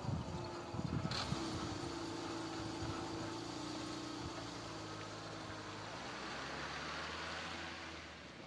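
A Peugeot 206's petrol engine idles and then pulls away, its tyres hissing on wet asphalt as it crosses the tracks. There is a sharp click about a second in.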